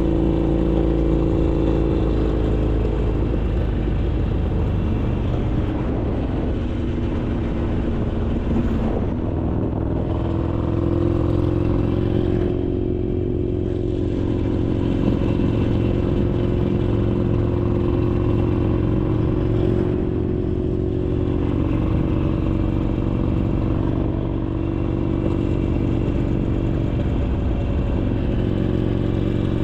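Harley-Davidson Iron 883's air-cooled V-twin running on an aftermarket RSD 2-into-1 exhaust while riding, steady and loud. The engine note changes pitch a few times as the throttle varies.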